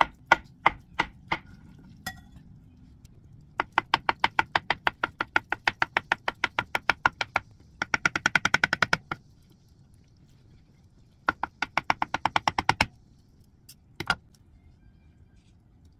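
Kitchen knife chopping agar jelly into thin strips on a wooden cutting board: quick runs of knife taps against the board, several a second, broken by short pauses, with a couple of single strikes near the end.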